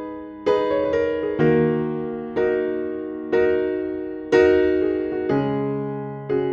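Slow, gentle electric piano music: soft chords struck about once a second, each left to fade before the next.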